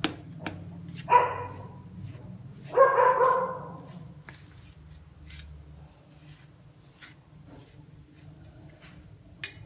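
A spoon scraping and clicking against a stainless steel plate while ground fenugreek is mixed with milk. Two loud pitched cries, short about a second in and longer from about three seconds in, stand out over the mixing.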